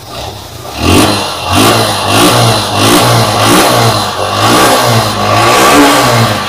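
Suzuki Gixxer SF's 155 cc single-cylinder, carburetted engine running through its stock exhaust. It is revved in a quick series of throttle blips starting about a second in, each one rising and dropping back.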